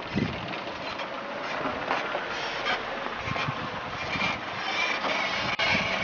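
Car driving slowly along a dirt road and passing close: engine running with tyre noise on the dirt surface.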